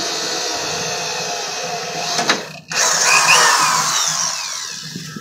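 Variable-speed cordless drill with a small bit boring into the steel floor of a truck battery box, its motor whining steadily. A little past two seconds in it stops with a click, then runs again and winds down, its pitch falling, near the end.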